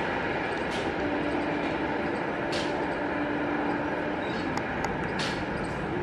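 Express passenger train's coaches running away on the rails at speed, a steady rush and rumble of wheels on track.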